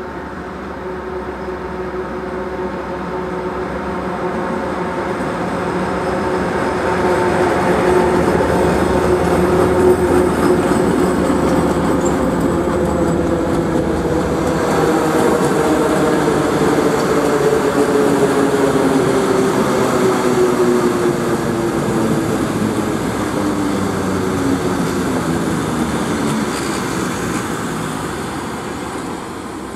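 M62 diesel locomotive's two-stroke V12 engine drawing near and going by, loudest about a third of the way in, then passenger coaches rolling past as the train slows for the station. A stack of humming tones slides slowly down in pitch in the second half, and the sound fades near the end.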